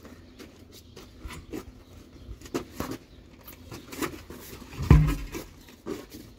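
Scattered clicks and knocks of hand work on a flat tire, with one heavy thump about five seconds in.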